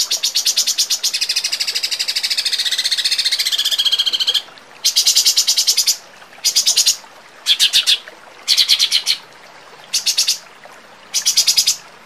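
Songbird recording of rapid 'tembakan' song: a sharp, fast trill of rapidly repeated high notes, continuous for about four seconds, then broken into about six short bursts with brief gaps between them.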